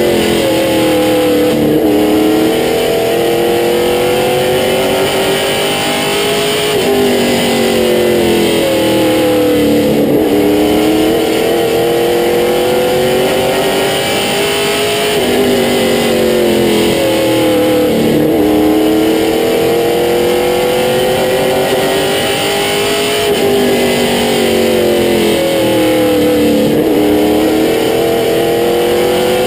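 Limited Late Model stock car's V8 engine heard from inside the cockpit at racing speed. Its pitch climbs as it accelerates down each straightaway and drops as the driver lifts into each turn, a cycle of about eight seconds, over steady wind and road noise.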